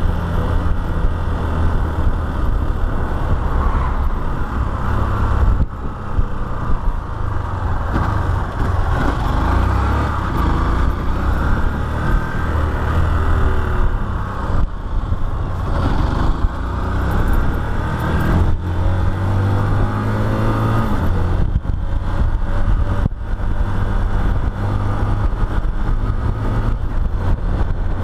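Motorcycle engine running while the bike is ridden along a street, its pitch rising and falling a few times around the middle as the rider speeds up and slows down.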